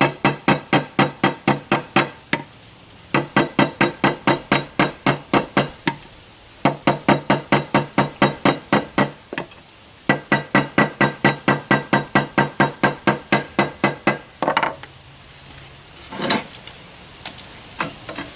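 Small ball peen hammer rapidly tapping the worn end of a threaded steel pipe, about five blows a second in four runs of a few seconds each, the pipe ringing under each blow; a couple of single blows follow near the end. The hammering closes down the wallowed-out pipe end so it fits tighter for welding.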